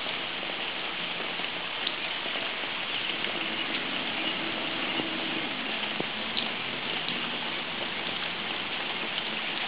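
Steady, even hiss of water: floodwater running across a flooded street, with rain falling.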